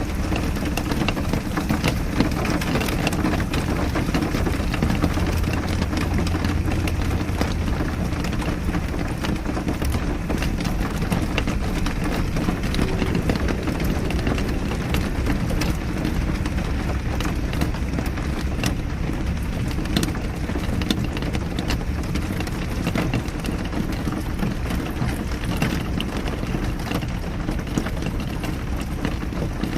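Steady rain with scattered drops pattering, over a continuous low rumble.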